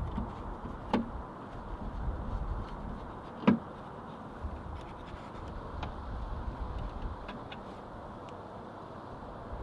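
A few sharp clicks and light knocks from hands working loose the plastic inside door handle parts of a car door, the loudest click about three and a half seconds in, over a low steady background rumble.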